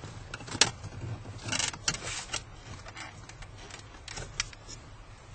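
Plastic dashboard trim being pried off and handled: a sharp click about half a second in, then scraping and several lighter clicks.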